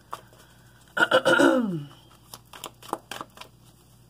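A short wordless vocal sound, a drawn-out 'hmm' or 'ohh' falling in pitch, about a second in, amid faint scattered clicks and rustles of tarot cards being handled on the table.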